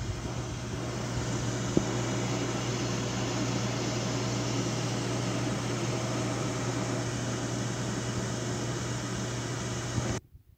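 A kitchen appliance's motor and fan running with a steady hum and whoosh, cutting off suddenly about ten seconds in.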